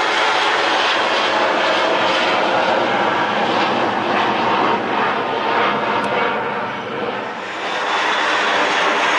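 Turbofan engines of a Dassault Falcon business jet flying overhead: a steady, loud rushing jet noise that dips briefly about seven seconds in.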